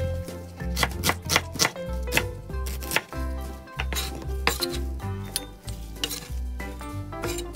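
Kitchen knife slicing brown onions on a wooden chopping board, the blade knocking the board in quick, irregular strokes, over background music.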